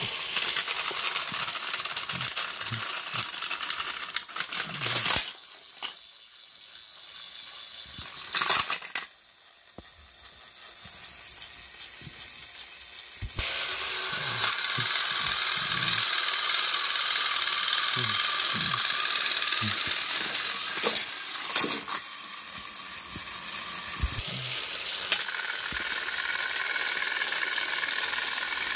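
Battery-powered Thomas & Friends toy train motors whirring, their wheels rattling on plastic track as the engines push against each other, with a few loud clattering knocks along the way.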